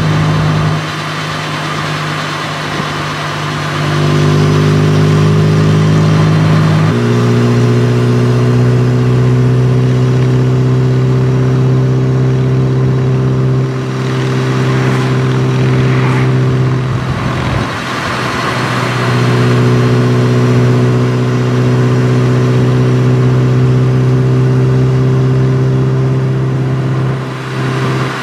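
Motorcycle engine running steadily at highway speed, with a rush of wind and road noise. Its note steps down once about seven seconds in, drops out briefly about two thirds of the way through, then returns at the same pitch.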